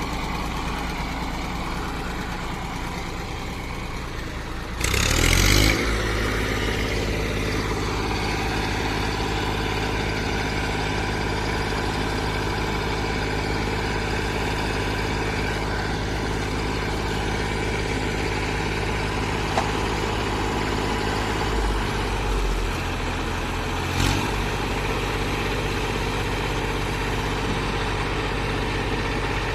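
Heavy diesel machinery engine running steadily, surging loudly about five seconds in and then holding at a higher pitch, with a short knock later on.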